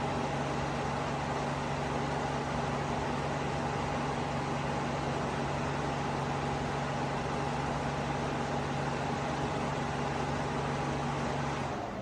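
Dreo DR-HTF007 bladeless tower fan running steadily: a broad rush of air over a steady motor hum with a higher whine. Near the end the sound drops away as the fan is turned down.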